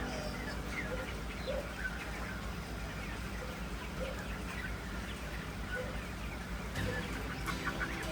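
Chickens clucking, with many short calls scattered throughout and more of them near the end, over a steady low hum.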